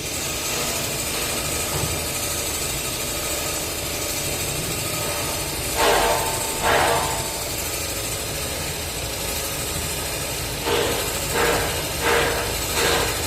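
Mattress tape edge sewing machine running with a steady mechanical whirr and hiss. A couple of louder surges come midway, and a string of them roughly every 0.7 seconds near the end.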